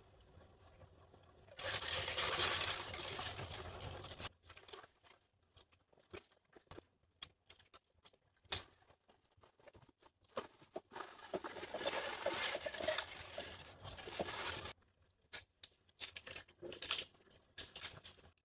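Disposable plastic piping bag rustling and crinkling in two long stretches as thick cookie dough is spooned into it and pressed down, with scattered light clicks and knocks in between.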